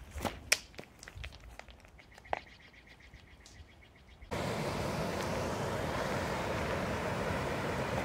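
A sling whirled and let go with a sharp crack about half a second in, then a single knock about two seconds later. From about four seconds in, the steady rushing of whitewater rapids.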